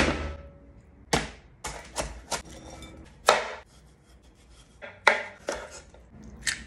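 Chef's knife chopping a cucumber on a wooden cutting board: about nine sharp knocks at uneven intervals as the blade strikes the board.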